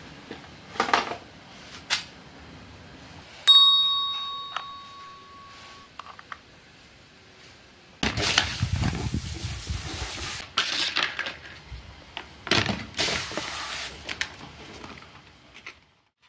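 A single bright metallic ding about three seconds in, ringing on with a clear tone for about two seconds. Later, a garden hose spray nozzle blasting water onto a metal motorcycle part, in two bursts of a couple of seconds each.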